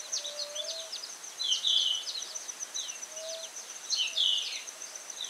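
Wild birds chirping in quick down-sweeping calls, loudest in two brief bursts about one and a half and four seconds in, over a steady high insect trill. A faint low whistled note comes twice.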